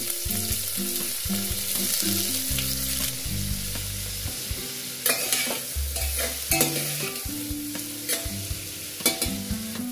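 Chopped onions sizzling as they fry in hot mustard oil in a steel pressure cooker, stirred with a metal ladle, with a few sharp clinks of the ladle against the pot about five, six and a half and nine seconds in.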